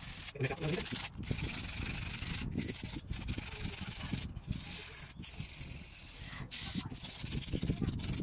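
Hand sanding the bare steel tang of a Zwilling Henckels kitchen knife with 180-grit wet-and-dry sandpaper, in quick back-and-forth rubbing strokes with short pauses between. The sanding is taking rust and residue off the tang before a new handle is glued on.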